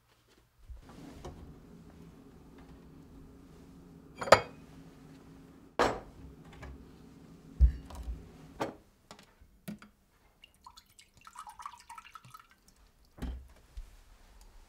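Kitchen handling sounds: several sharp knocks of a wooden cabinet door and a glass set on the counter over a low steady hum. Then juice is poured from a carton into a glass for about two seconds, and the carton is set down with a knock.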